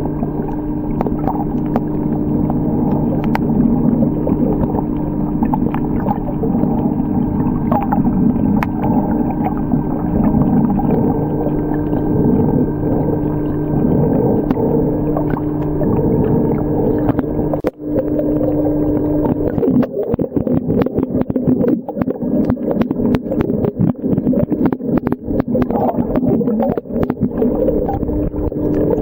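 Underwater recording: a steady low hum over gurgling water. After a brief dropout about two-thirds of the way through, the hum fades and a dense crackling takes over.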